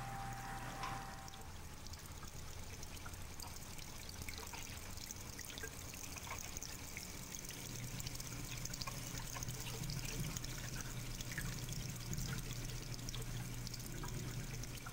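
Water trickling and pouring steadily along a sculpture's winding water channel, with scattered small drips and a steady low hum underneath.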